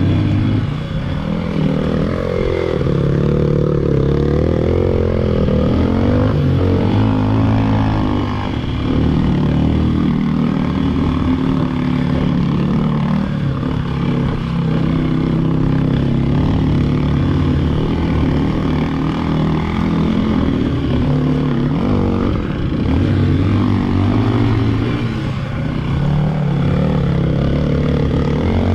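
Motorcycle engine running while riding, its pitch rising and falling with the throttle.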